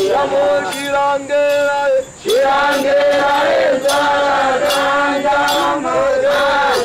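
A group of Hadzabe dancers singing a traditional chant in long, held notes, with a short break about two seconds in. A regular sharp beat sounds about twice a second under the singing.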